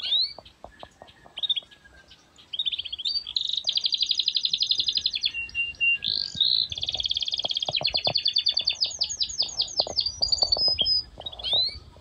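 A small songbird singing: fast runs of high chirps, many a second, repeating in long bursts from about two and a half seconds in, after a few single chirps.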